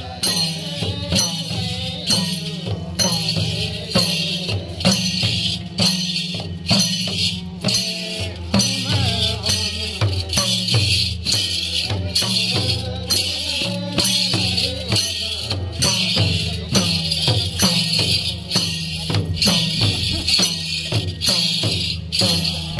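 Madal hand drums playing a steady, even Sorathi folk-dance rhythm, with bright jingling on every beat.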